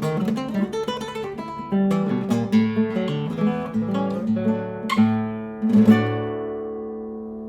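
Acoustic guitar playing a solo piece of plucked notes, with two sharp chord strokes about five and six seconds in. The last chord is left to ring and slowly fades.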